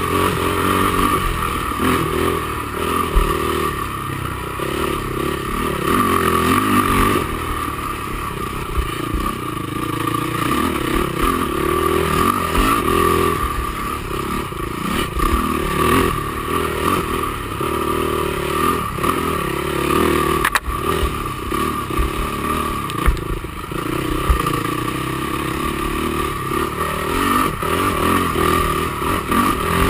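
Honda TRX450R quad's single-cylinder four-stroke engine running hard, heard onboard, its revs rising and falling again and again as it is ridden through the trail. Occasional knocks and rattles from the machine over rough ground, the sharpest about 20 seconds in.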